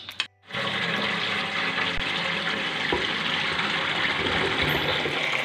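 Boiled macaroni and its hot cooking water pouring from the pot into a colander, a steady gushing splash that starts about half a second in.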